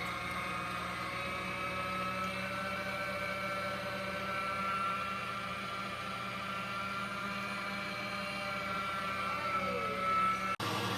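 Electric meat grinder's motor running steadily with a constant whine while grinding deer meat; its pitch sags briefly near the end before the sound cuts off abruptly.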